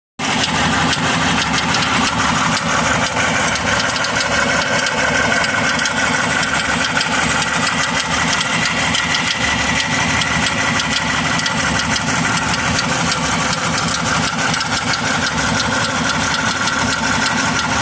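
2003 Jeep Grand Cherokee WJ's 4.0-litre inline-six idling steadily, with a fast, even ticking and a faint steady high tone over it. This is the chirping noise the owner hears with the transmission in gear.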